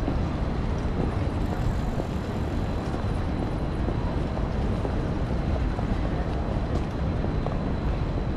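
Steady outdoor city street ambience: an even, unbroken wash of noise dominated by a low rumble.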